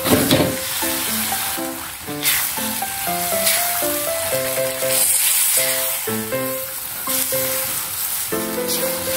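Whole carp sizzling in hot oil and spice paste in a wok, loudest as the fish go in about the first half second, then swelling again as they are turned with a spatula. A light melodic background music plays throughout.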